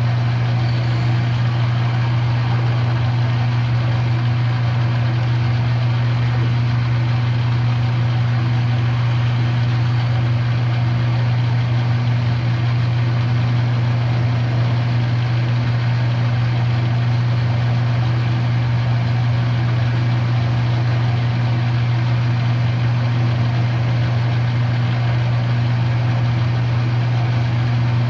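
Shop machine tool's electric motor running steadily with a strong low hum and a constant mechanical whir.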